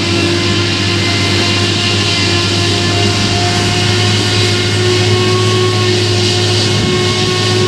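Claas Jaguar 970 self-propelled forage harvester working under load, chopping rye and blowing it into a trailer alongside. Its V12 engine and chopping gear make a steady drone, with several even whining tones that hold through the whole sound.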